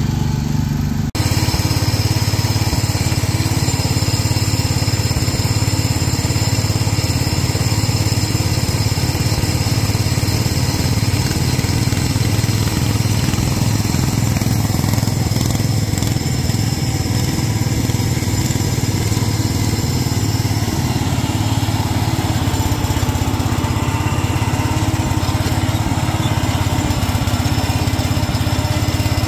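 Small engines of garden tractors running steadily as the tractors are driven, with an abrupt change in the sound about a second in.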